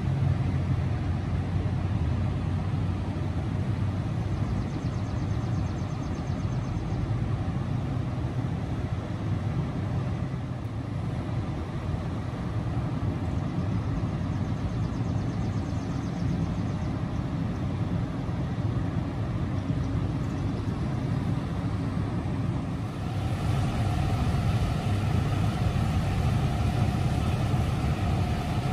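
Fire trucks' diesel engines idling, a steady low rumble. Near the end a steady higher hum with a constant pitch joins in.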